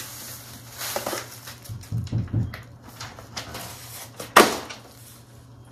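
Tissue paper and a synthetic wig rustling as they are handled and lifted from the box, with construction noise from house siding being installed: a few dull thumps about two seconds in and one sharp knock a little after four seconds.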